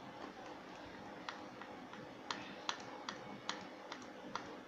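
Light, sharp clicks, about ten at uneven spacing, as a screwdriver works a small screw out of a Western Digital hard disk drive's casing.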